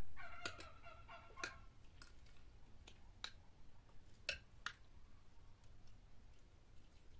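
Metal spoon clinking and scraping against a glazed clay pot and a plate as stew is served over rice: light scattered clicks, about eight in the first five seconds, with a brief wavering tone in the first second and a half.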